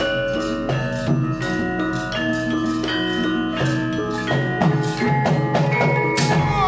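Central Javanese gamelan playing: bronze metallophones and gongs strike ringing notes in a steady pulse, and a sharp crash cuts through near the end.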